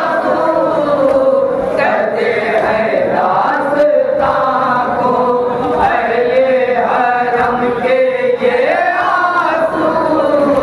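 Men's voices chanting a nauha, a Shia mourning lament, in long held lines: a reciter sings into a microphone and the mourners join in.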